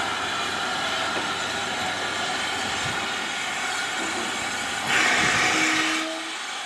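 SER Stirling 0-6-0 steam locomotive No. 65 moving slowly along a platform with a steady hiss. About five seconds in, a louder hiss of steam lasts about a second, followed by a short steady tone.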